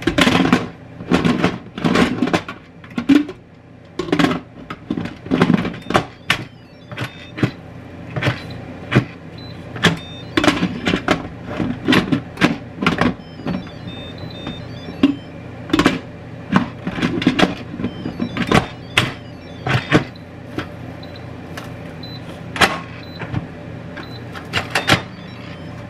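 Instant Pot lid clacking and knocking against the pot rim as it is set down and twisted again and again, failing to lock shut. The knocks come irregularly, several a second in flurries, with a few pauses.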